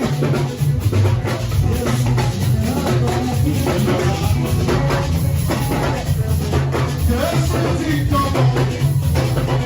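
Gospel band music with a drum kit and a strong bass line keeping a steady beat.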